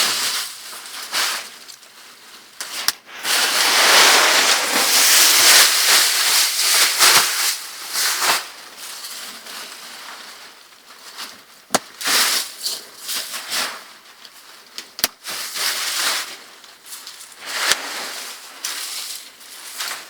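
Dry leaves and a nylon military poncho being handled, making rustling and crunching with a few sharp clicks. The longest, loudest rustle comes between about three and eight seconds in.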